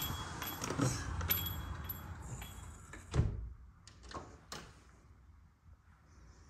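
Outside street noise with light clicks through an open glass storefront door, then the door swings shut with a thump about three seconds in, cutting the outside noise off. A couple of light knocks follow in the quiet room.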